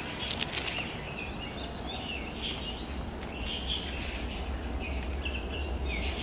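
Several small birds chirping and calling in short, quick phrases over a steady low background rumble, with a few brief rustling clicks near the start.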